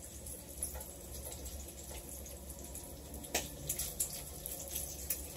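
Bacon frying in a pan, a steady sizzling hiss, with a few sharp clicks of a utensil against the pan.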